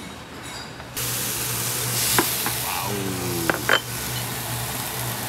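Marinated pork galbi sizzling on a wire-mesh grill over glowing charcoal: a steady hiss that starts suddenly about a second in, with a few light clicks.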